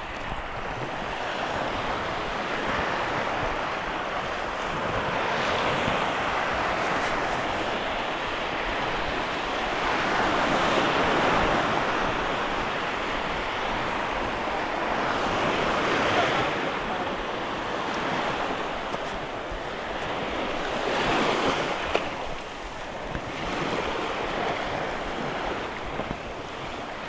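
Sea waves breaking and washing up the beach, swelling and fading every four or five seconds, with wind blowing on the microphone.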